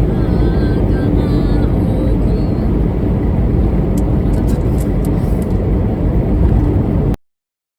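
A vehicle on the move, with a loud, steady road-and-engine rumble and a faint constant hum. A few faint chirps come in the first two seconds, and a few short high clicks come about halfway through.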